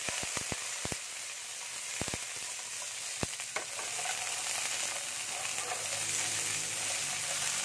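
Carrot pieces sizzling in oil in a nonstick frying pan, with a steady hiss. Several sharp clicks of metal tongs against the pan come in the first few seconds as the pieces are turned.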